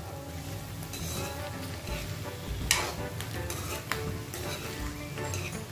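A spatula stirring and scraping chopped green beans around a steel kadai, the beans sizzling in hot oil, with irregular scrapes against the pan, the sharpest a little under three seconds in.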